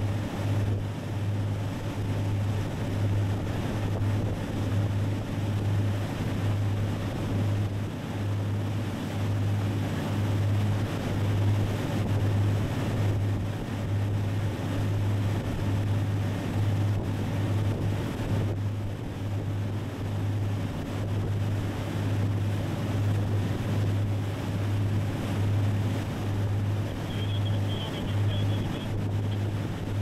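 Motorboat engine running steadily at speed, a low drone with a slight regular pulse, over the rush of the wake and wind buffeting the microphone.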